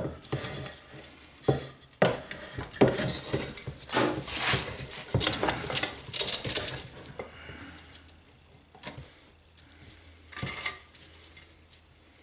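Metal clinking and scraping as hand tools and small engine parts are worked against each other. The clinks come thick for the first several seconds, then grow sparse and quieter.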